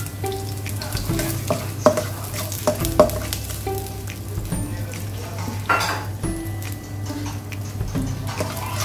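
Sliced garlic frying in oil in a nonstick pan, sizzling while a spatula stirs it, with repeated scrapes and taps of the spatula against the pan.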